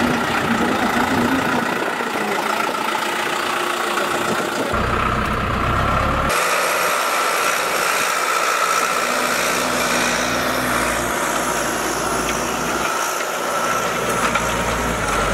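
John Deere 5090E tractor's diesel engine running steadily, with abrupt changes in the sound about five and six seconds in.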